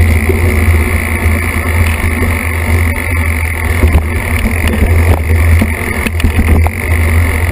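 Mountain bike riding down a dirt singletrack, picked up by a camera mounted on the bike: a loud, steady low rumble of wind and trail noise, broken by occasional knocks and rattles over bumps.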